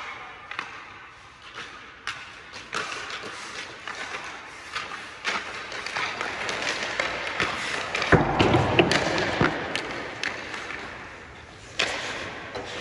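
Hockey sticks striking pucks and pucks knocking against the boards and net: scattered sharp knocks, with a louder stretch of heavier thuds about eight seconds in.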